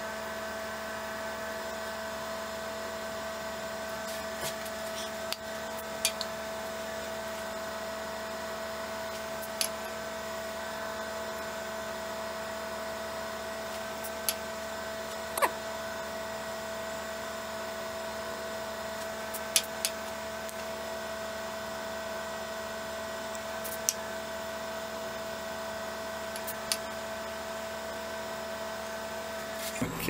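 Nova Galaxi DVR wood lathe's motor humming steadily at a constant pitch, with a few short, faint clicks scattered through.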